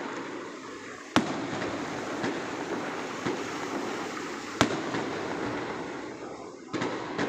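Fireworks going off across a city: a steady crackle and rumble of distant bursts, with two sharp, loud bangs, about a second in and about four and a half seconds in, and a few smaller pops between them.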